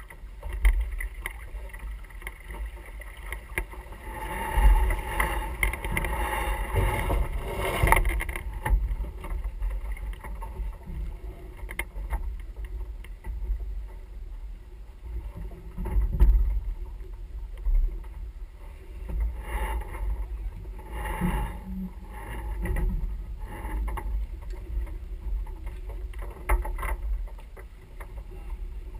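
Sailing yacht under way: wind buffeting the microphone as a steady low rumble, with water rushing along the hull and irregular louder bursts of deck noise.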